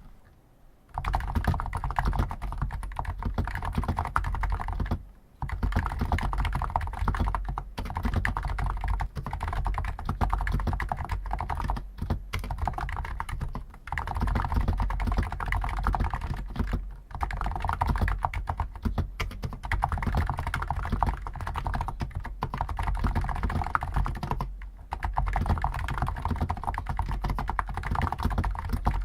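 Hansung GTune CHL5 XRGB capacitive (contactless) keyboard with stock 50 g switches, typed on fast and continuously, starting about a second in. The typing stops for brief pauses every few seconds.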